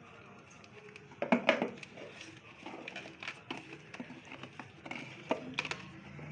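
A smartphone retail box and its packaging being handled and opened: a cluster of sharp clicks and knocks about a second in, then scattered lighter clicks and faint rustling.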